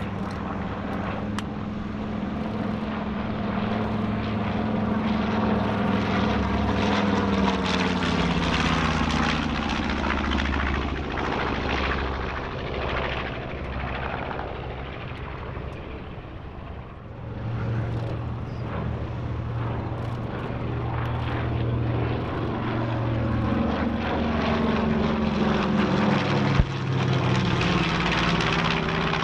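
Twin-engine B-25 Mitchell bombers flying low passes, their two Wright R-2600 radial engines droning. The first aircraft's engine note drops in pitch and fades as it flies away; after a brief lull a second one comes through, its note also falling as it passes. A single sharp thump near the end.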